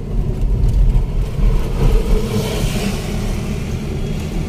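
Car engine and road rumble heard from inside the cabin as the car accelerates, with a brief rush of higher noise about halfway through.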